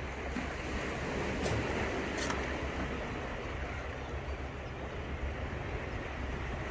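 Steady wash of sea waves and wind, with a low rumble of wind on the microphone. Two short clicks sound about a second and a half and two seconds in.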